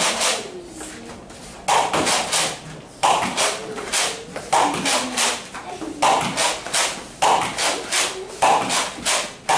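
Nerf Rival Artemis pump-action blaster firing foam balls in a series of sharp shots, a second or more apart, mixed with knocks of balls striking and bouncing and quick footsteps on foam mats.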